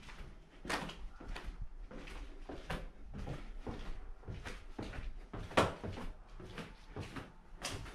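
Footsteps going down a staircase and across a floor: a steady run of short thuds and knocks, a few each second, with one sharper knock about five and a half seconds in.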